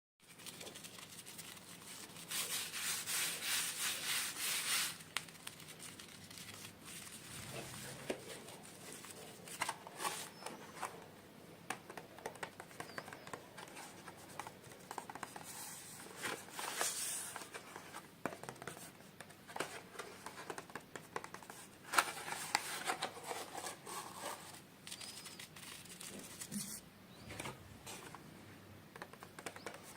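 Toy packaging being handled and opened by hand: irregular crinkling, rubbing and tearing of plastic and paper, with small clicks and taps, louder for a couple of seconds early in the stretch.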